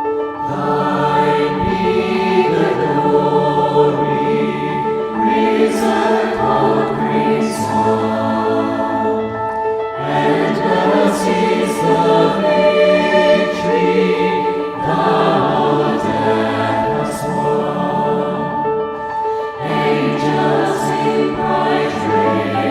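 A choir singing a hymn with accompaniment, in sung phrases of a few seconds each.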